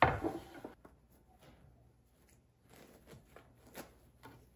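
A knock as a heavy wooden cutting board is set down on a stone countertop, then faint rustling and small clicks of a cotton cloth being folded back from bread rolls on the board.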